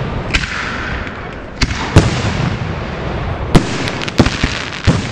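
Aerial firework shells bursting overhead: about six sharp bangs in quick, uneven succession, the loudest about two seconds and three and a half seconds in, over a steady background hiss.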